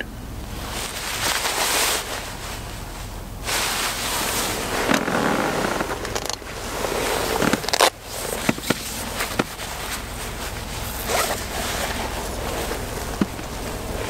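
Rustling and handling noise on the camera's microphone as the camera is turned around: swells of scratchy hiss, like nylon fabric rubbing, with a few sharp clicks and knocks in the middle and one near the end.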